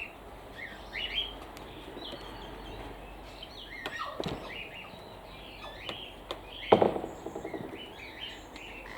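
Birds chirping and calling: many short, high chirps throughout, with two louder calls about four and seven seconds in.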